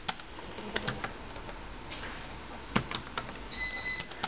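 Typing on a Dell laptop keyboard: scattered keystroke clicks. About three and a half seconds in, a short, high electronic beep is the loudest sound.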